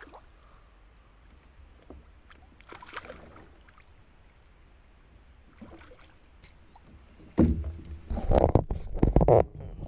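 A hooked smallmouth bass being brought in alongside a kayak: faint splashes, then near the end a couple of seconds of loud knocks and splashing as the fish is landed.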